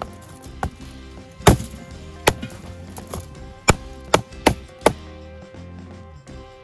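A knife chopping through a jerked rooster on a foil-covered wooden board: about seven sharp chops at uneven intervals, the loudest about one and a half seconds in. Background music plays throughout.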